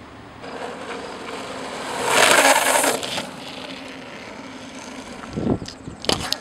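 Longboard wheels sliding sideways across asphalt: a loud rushing hiss about two seconds in that lasts around a second, over the steady sound of the wheels rolling. A few sharp thumps and knocks come near the end.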